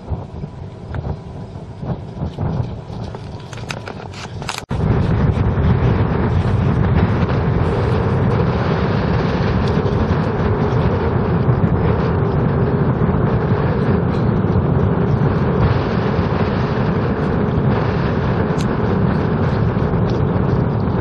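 For about five seconds, uneven gusty noise with scattered small crackles. Then it cuts suddenly to a loud, steady rush of flowing canal water.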